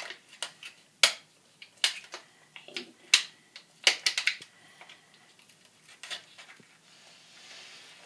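Clear plastic toothbrush blister pack being pushed in at its seam to open it: irregular sharp crackles and snaps, loudest in the first four seconds, then fainter.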